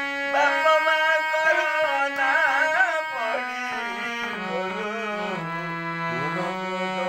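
A man singing an Odia village folk song (palli geeta) to his own harmonium accompaniment, the harmonium's reeds holding sustained notes under his voice. About three seconds in, the melody moves down to a lower register.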